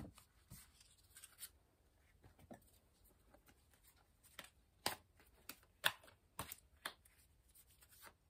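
Tarot cards being handled and shuffled: faint, scattered taps and clicks of card stock, with a few sharper ones about five and six seconds in.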